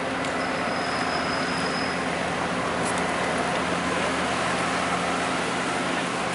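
Bobcat S770 skid-steer loader's diesel engine running steadily at constant speed.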